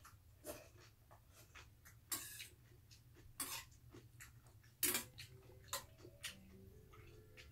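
Metal spoon scraping and tapping against a stainless steel bowl of rice in water: about six separate short scrapes and clinks, the loudest about five seconds in.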